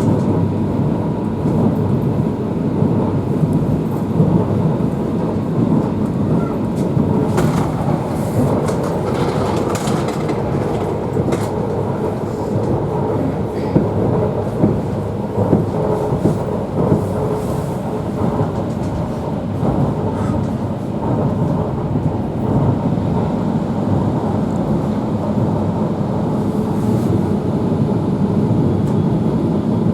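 Electric commuter train running along the track, heard from inside the carriage: a steady rumble of wheels on rails, with a run of sharp clicks and knocks partway through.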